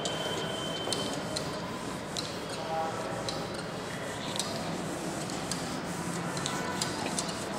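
Cloth duster being wiped across a whiteboard in repeated strokes: a steady rubbing with scattered small ticks.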